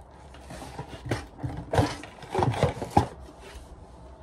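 Cardboard packaging insert rubbing and scraping against a hollow plastic pumpkin as it is worked free of its wire ties, an irregular run of handling noises with several sharper knocks about two to three seconds in.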